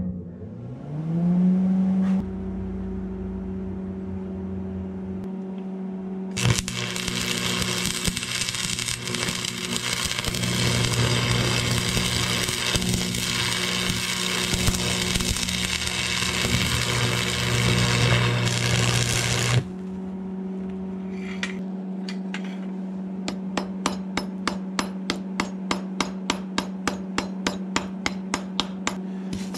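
Lincoln AC-225 stick welder switched on, its hum rising in pitch and then holding steady. Then about thirteen seconds of arc welding, a loud steady crackle. Near the end, with the welder still humming, a chipping hammer knocks slag off the fresh weld in light, even knocks about three a second.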